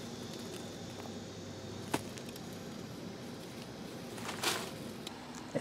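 Quiet steady background hiss, with one sharp click about two seconds in and a brief rustle about four and a half seconds in.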